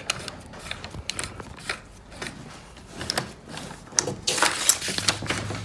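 Small scattered clicks and scraping of metal parts as the chuck of a RESI PD series drill is unscrewed by hand with the chuck tool, with a louder scraping rustle about four seconds in.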